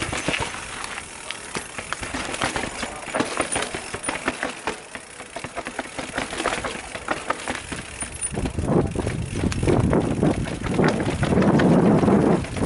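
Mountain bike clattering down concrete and rock steps: a dense run of tyre knocks and chain and frame rattle. About eight seconds in it grows louder, with a heavy low rumble under the rattle.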